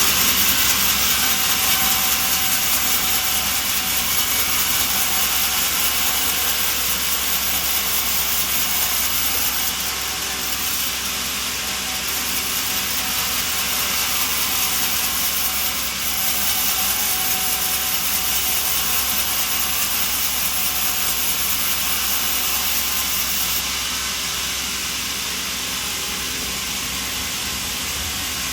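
Sawmill machinery running with a steady, hissing noise that shifts in level a few times.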